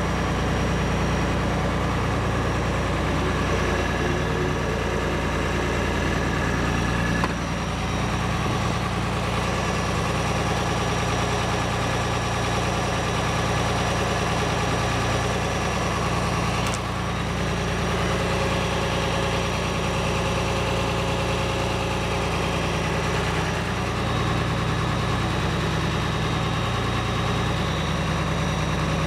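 International Harvester 1206 tractor's turbocharged six-cylinder diesel engine running steadily.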